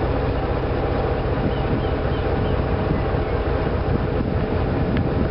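Steady running noise of the MV Wairua riverboat's engine, heard on deck as the boat comes in to tie up at a riverbank landing.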